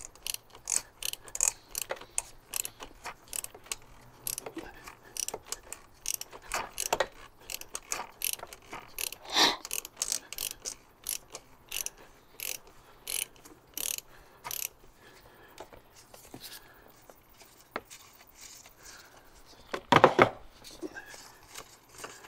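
Ratchet wrench clicking in quick strokes, about two to three clicks a second, as it backs off the 32 mm hex cap of the oil filter housing. The clicking stops about two-thirds of the way through, and a single louder knock comes near the end.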